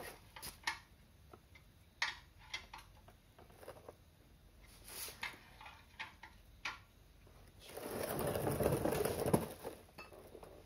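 Ratchet wrench with a 14 mm socket clicking in short, scattered strokes as the oil drain bolt is tightened back into the oil pan of a Toyota MR-S. Near the end a longer rolling, scraping rumble: the mechanic's creeper moving on concrete.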